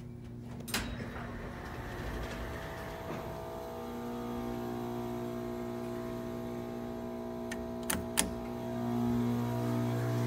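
Old 1971 lift's machinery humming steadily in several tones. There is a sharp click about a second in and two quick clicks about eight seconds in, and the hum grows louder near the end.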